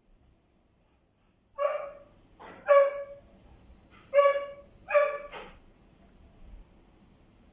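A person coughing four times in two pairs of short, voiced, throaty coughs, with a breathy rasp after each pair. It is a lingering cough after Covid being cleared.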